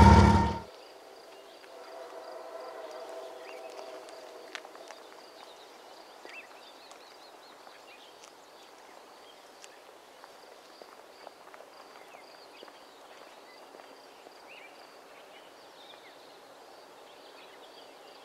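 A train's horn and rolling noise cut off suddenly in the first second, leaving quiet outdoor ambience: scattered faint bird chirps over a steady faint high tone, with a faint hum that swells and fades a few seconds in.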